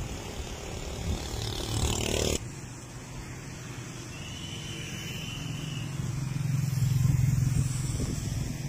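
Road traffic: motorbike and car engines passing. The sound changes abruptly about two and a half seconds in, after which a low engine hum builds, loudest about seven seconds in, then eases off.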